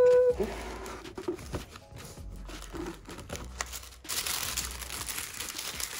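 Tissue paper rustling and crinkling as it is unfolded inside a gift box. A few light handling clicks come first, and the paper grows loudest from about four seconds in.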